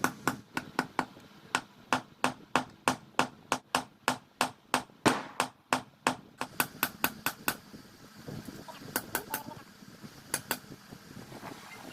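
Hammer blows ringing on steel on an anvil, forging a knife blade from car-axle steel: a steady run of about three strikes a second that stops about seven and a half seconds in, then a few separate blows near the end.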